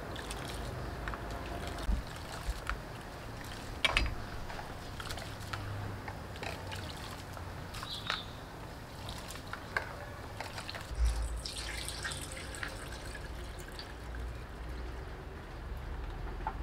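Rice being washed by hand in a bowl of water: swishing and trickling water, with a hiss of poured or draining water about eleven seconds in. A few sharp clicks of a knife on a wooden cutting board come in between.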